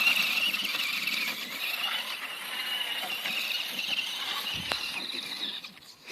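Electric RC truck's motor and gears whining at a high, slightly wavering pitch, gradually getting quieter and dropping out just before the end.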